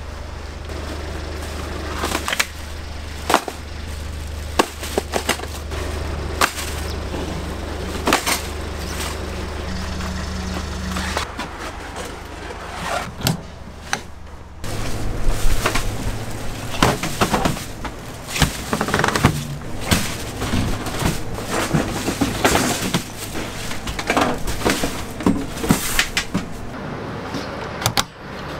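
Restaurant kitchen work: many irregular knocks and clatters, like utensils and cookware being handled, over a steady low machine hum that changes pitch about halfway through.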